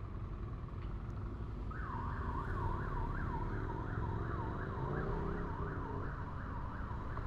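Police siren in a fast yelp, rising and falling about three times a second, starting about two seconds in, over steady low motorcycle engine and road noise.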